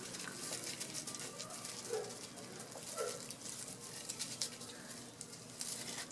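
Golden retriever puppies' paws scrabbling over loose gravel and dry leaves, a quiet, irregular patter of small crunches and rustles, with two brief faint squeaks about two and three seconds in.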